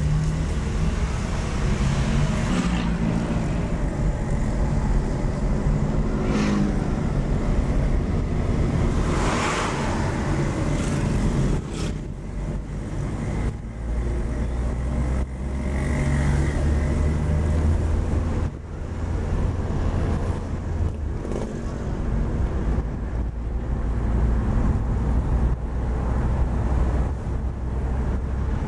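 Renault 16 TS driving through town traffic, heard from inside the car: a steady low engine and road rumble. Louder swells from passing traffic come through a few times.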